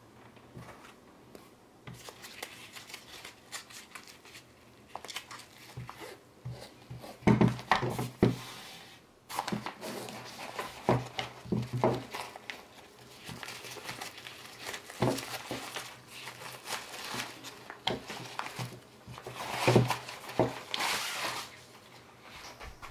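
Nylon carry pouch of a Sony VCT-R100 tripod rustling and crinkling as it is handled and the folded tripod is pulled out of it, with several sharp knocks as the tripod is handled.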